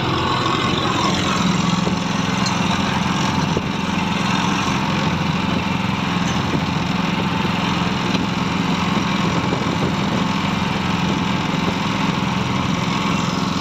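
Engine running steadily with a low, even hum as a boat's net hauler winds in a fishing net, over wind and water noise.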